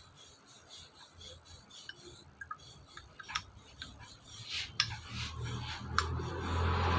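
Light metal clicks and scraping as the brake's parts and locking pin are handled and worked into place. A passing vehicle swells up near the end.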